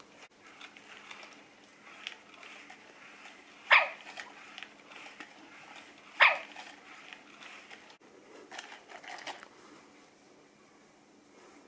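Sony aibo robot dog giving two short, sharp barks about two and a half seconds apart, with softer yips a few seconds later.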